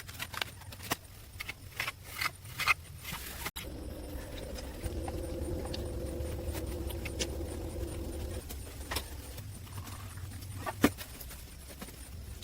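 Irregular sharp knocks and clicks, then a steady low hum for about four seconds, then a few more knocks, one loud near the end.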